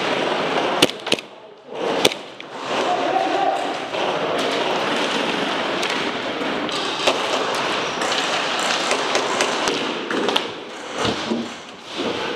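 Indoor airsoft game: scattered sharp cracks and thuds over a steady noisy din, which drops away briefly about one and a half seconds in and again near the end.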